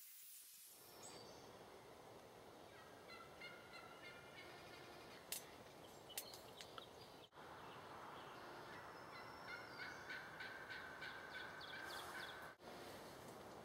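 Faint turkey calling: two bouts of rapid, stuttering runs of notes, each a few seconds long, with a couple of sharp clicks in the first bout.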